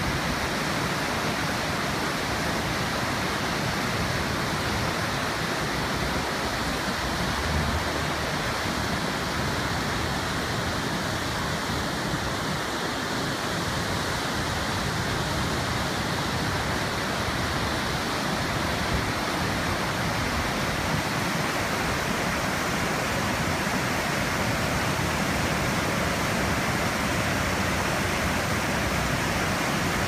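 River rapids: whitewater rushing steadily over and between boulders.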